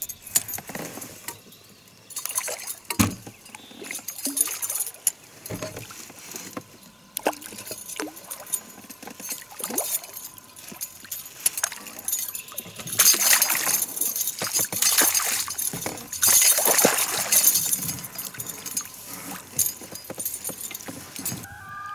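A hooked rainbow trout splashing and thrashing at the water's surface as it is reeled in toward the landing net, loudest in two spells of splashing a little past the middle. Light clicks and rattles of the fishing tackle come through between the splashes.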